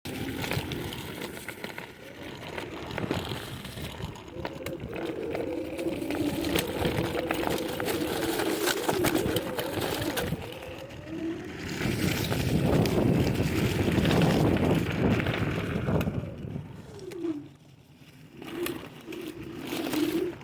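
Electric scooter being ridden on a dirt road: a motor whine that wavers and glides in pitch with speed over a constant rush of wind and tyre noise, with frequent sharp clicks and rattles from bumps. The sound dips briefly near the end, then picks up again.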